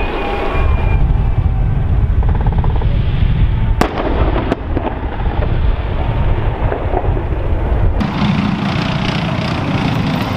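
Live-fire range: rumbling explosions and gunfire, with two sharp cracks about four seconds in. The sound changes near eight seconds to the steady running of an M1A2 Abrams tank's gas-turbine engine.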